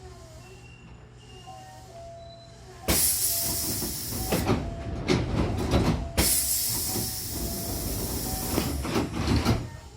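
Pneumatic sliding doors of a Hankyu train working on compressed air: about three seconds in a loud hiss of air starts with several knocks. It breaks off sharply a little past the middle, then resumes and dies away near the end.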